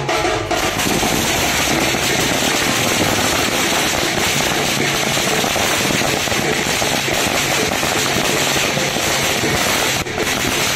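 A long string of firecrackers going off in a dense, continuous crackle for about nine seconds, breaking off near the end as the drumming comes back.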